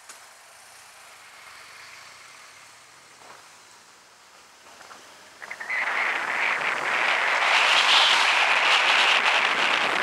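A motorcycle under way, its engine faint beneath the microphone. About five and a half seconds in, a loud rush of wind buffeting the bike-mounted camera's microphone comes in suddenly and keeps building as the bike gathers speed.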